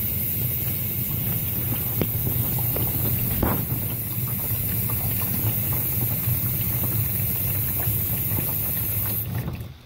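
Dishwasher running its fill cycle: water hissing in with a steady hum from the machine, and one click about three and a half seconds in. It cuts off suddenly near the end.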